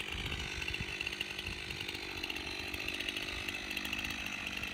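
Stihl two-stroke chainsaw idling steadily while held at the operator's side, not cutting.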